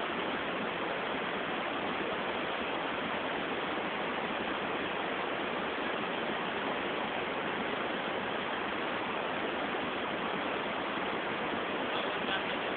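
Steady, even hiss that does not change, with no distinct knocks, voices or other events.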